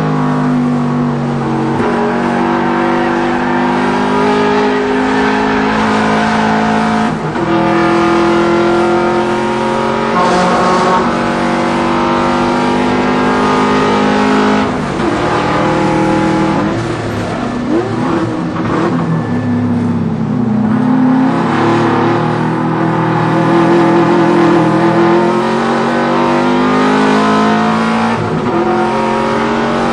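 Subaru WRX's turbocharged flat-four engine revving hard under acceleration. Its pitch climbs, then drops at gear changes several times, with throttle blips as it is heel-toe downshifted.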